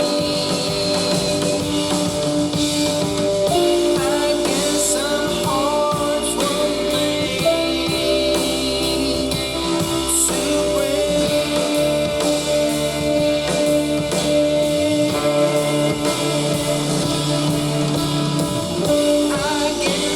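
A rock song with electric guitar, drum kit and singing, played back through the Harman/Kardon HK 3250 stereo amplifier.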